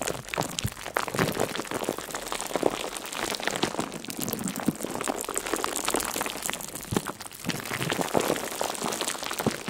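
A dense, irregular crackling patter of many small clicks and pops, going on without a break.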